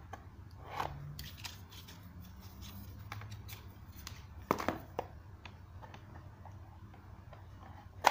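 Plastic divider panels being slid and pressed into the slots of a plastic tackle box compartment: scattered light plastic clicks and scrapes, with a louder double click about four and a half seconds in and a sharp click at the end.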